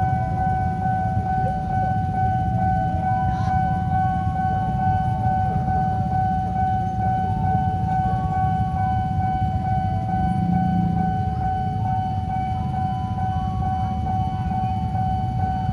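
Railway level-crossing warning alarm sounding one steady high tone without a break, over a low rumble of traffic.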